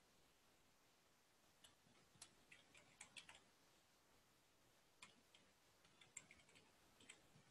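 Faint computer keyboard typing in near silence: two short runs of keystrokes, the first starting about a second and a half in and the second about five seconds in.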